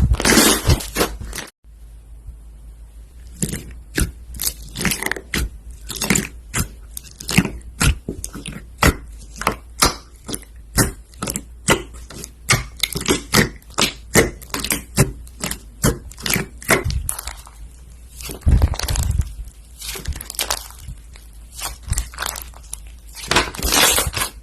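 Slime being pressed and poked by hand, giving a quick, uneven run of crisp crackles and pops, with a brief break about a second and a half in.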